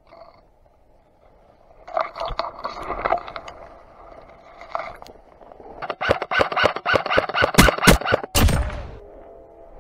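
Leafy brush rustling and scraping against the player's gear, then a rapid run of sharp shots from an airsoft electric rifle for about two seconds.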